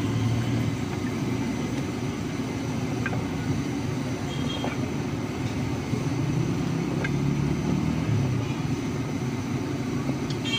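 Steady low background rumble, with a few faint light clicks from raw potato strips being tossed by hand with cornstarch in a steel bowl.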